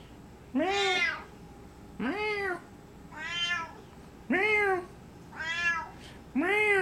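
Siamese cat meowing repeatedly: six meows about a second apart, each rising then falling in pitch.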